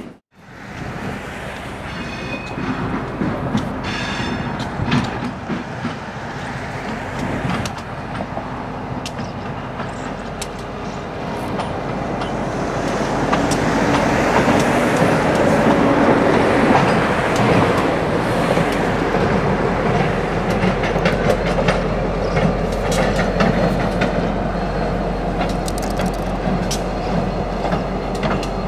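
EMD GP39-2 diesel locomotive's turbocharged twelve-cylinder engine running as it rolls past. It grows louder about halfway through, with freight car wheels clicking over the rail joints.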